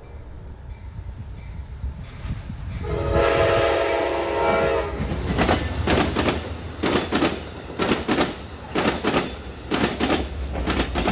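Amtrak Downeaster passenger train passing at speed, led by a GE Genesis diesel locomotive. The locomotive sounds its multi-tone horn for about two seconds, a few seconds in. Then the cars' wheels click-clack over rail joints in quick clusters over the engine's low rumble.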